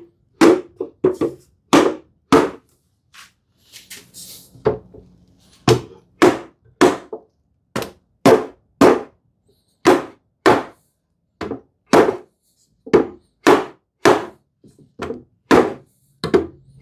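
Hammer tapping on a wooden frame to knock dry-fitted mortise and tenon joints apart: a long run of sharp knocks, one or two a second with short pauses between.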